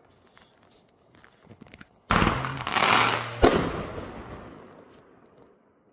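Fireworks going off: faint scattered crackles, then a loud bang about two seconds in with a crackling spray, and a second sharp bang about a second later, the sound dying away over a couple of seconds.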